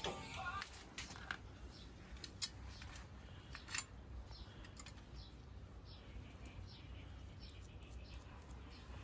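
A few sharp clicks in the first four seconds, then a bird chirping over and over with short falling notes, about one or two a second.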